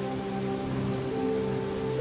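Steady rainfall under soft, slow piano music holding long notes, with a new note coming in about a second in.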